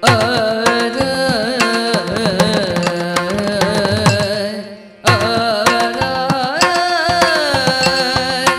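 Yakshagana song: a woman's voice sings long, ornamented, gliding phrases over a steady drone and frequent drum strokes. The singing falls into two phrases with a brief break near the middle.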